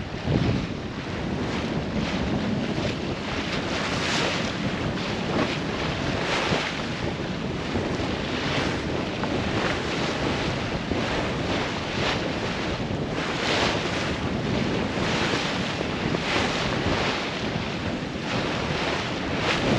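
Wind buffeting the microphone over the rush and splash of waves along the hull of a sailboat sailing hard into a choppy sea. The hiss swells every second or two as the boat meets the waves.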